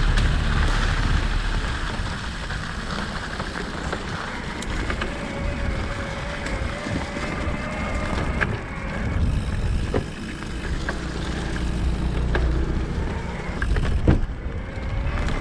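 Wind buffeting the microphone and tyres rolling over a leaf-covered track while riding an e-mountain bike, a steady low rumble with occasional clicks and rattles from the bike.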